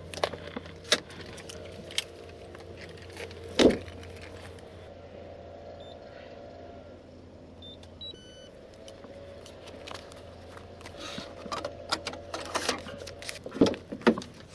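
Jangling and sharp clicks of small hard objects being handled, over a steady low hum.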